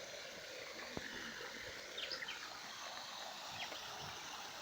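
A few short, high bird chirps about two seconds in and again near the end, over a steady outdoor hiss, with one faint sharp click about a second in.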